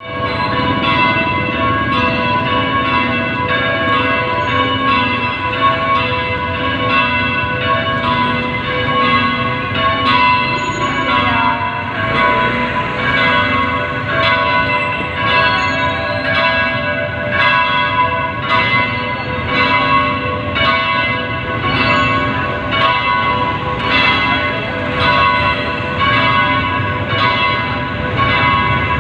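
Church bells ringing a continuous peal: several bells of different pitches struck over and over in an even rhythm, about two strokes a second, their tones overlapping and ringing on.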